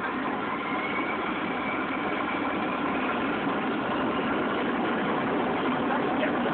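Boeing 737 jet engines heard from inside the passenger cabin: a steady rushing hum with faint high whining tones above it, slowly growing louder.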